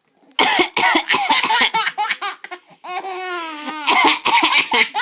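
A person coughs in a fit, a rapid string of coughs. A baby breaks into laughter about three seconds in.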